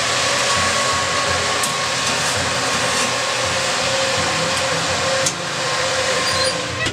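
Convection oven's fan running with the oven door open: a loud, steady rush of air with a faint hum in it, briefly dipping a little past five seconds in, and a few faint clicks.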